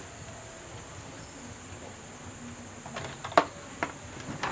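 Quiet steady background hiss with a faint high whine, then two or three sharp clicks about three seconds in as the TV's circuit board and wiring are handled.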